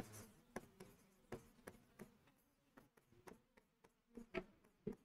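Chalk writing on a blackboard: faint, irregular taps and short scratches as each letter is stroked, a few louder strokes near the end.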